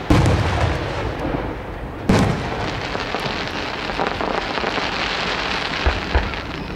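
Aerial firework shells bursting: a sharp boom at the start and another about two seconds later, followed by a dense crackling hiss of crackle stars that lasts several seconds, with two faint thuds near the end.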